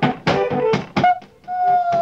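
Music with a quick, steady percussive beat of about six strokes a second, under a long held note that glides slowly downward in pitch. The music drops out briefly a little over a second in.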